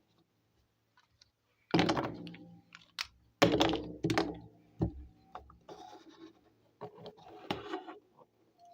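Small plastic toy kitchen pieces being handled and set down: a string of sharp knocks and clicks starting about two seconds in, with some light rustling between them.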